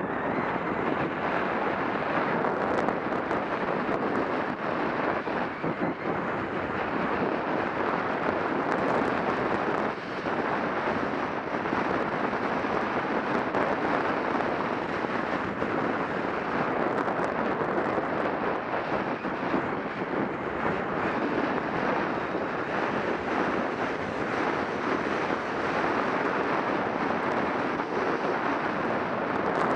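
Wind rushing over an action camera's microphone during a ski descent, a steady rush mixed with skis hissing and scraping on snow.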